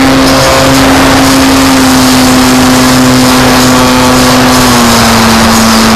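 RC model plane's motor and propeller running loud and steady at a high, even pitch, dipping slightly in pitch near the end.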